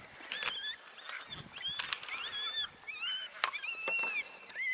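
Coyotes yipping and howling: a string of short, wavering high-pitched calls, several overlapping, with a few sharp clicks between them.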